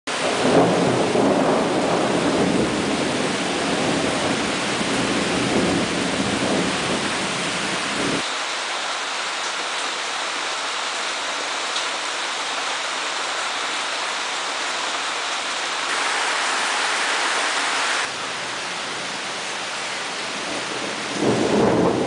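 Heavy rain pouring down on leafy trees and shrubs, a dense steady hiss. A deep rumble sits under it for the first eight seconds and returns about a second before the end. The sound shifts abruptly a few times in between.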